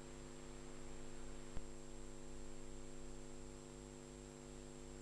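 Steady electrical mains hum over a faint hiss, with a single click about a second and a half in.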